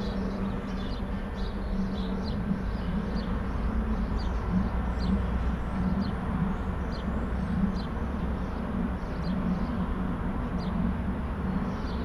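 Steady low mechanical rumble with a hum from heavy machinery or truck engines out of sight, easing slightly at the start. A bird chirps repeatedly over it.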